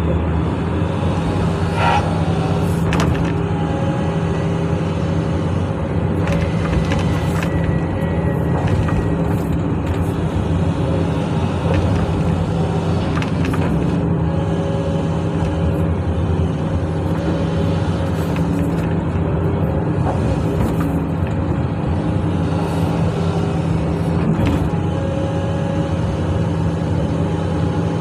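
Diesel engine of a SANY hydraulic excavator running steadily under load as it digs and dumps clay soil, with scattered knocks and clatters from the bucket and falling clods.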